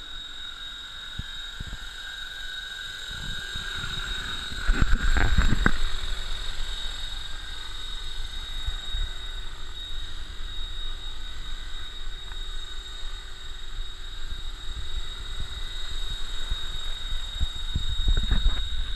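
Radio-controlled scale Bell 47 model helicopter hovering: a steady high-pitched motor and rotor whine, with low gusts of rotor wash buffeting the microphone. The gusts are loudest about five seconds in and again near the end.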